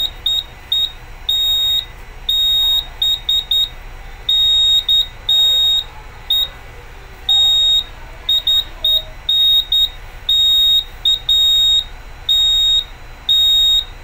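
Fire alarm control panel buzzer beeping on one high tone while the panel is in general alarm from a triggered smoke detector. The beeps come in an uneven run, some short and some about half a second long.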